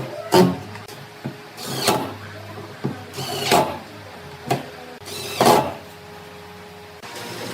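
Work on wood in a workshop: four short scraping strokes about a second and a half apart, with light knocks between them over a faint steady hum. Near the end the strokes stop and a steadier machine noise comes in.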